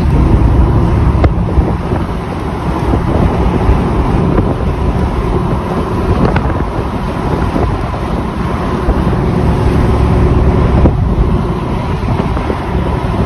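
Loud, steady wind rush and road noise from a moving car, with wind buffeting the microphone.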